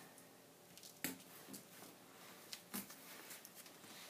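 A few faint clicks and taps of push pins being pressed through a paper template into a foam board sheet, the clearest about a second in and near three seconds in.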